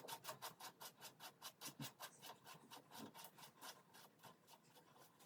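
Faint, rapid rasping ticks, about six a second, fading toward the end: a back nut being screwed onto the threads of the cistern's flush pipe connection.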